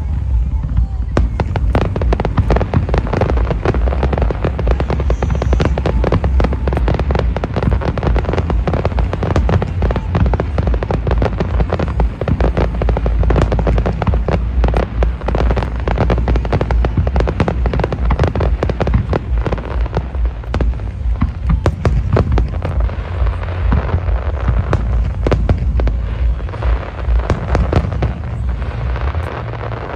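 Aerial fireworks display in a dense barrage: rapid bangs and crackling over a continuous low rumble, easing slightly near the end.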